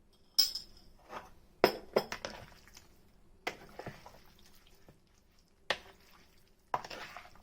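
Kitchenware clinking while spices are added to chicken and mixed in: about half a dozen separate sharp clinks, with scraping and rustling between them.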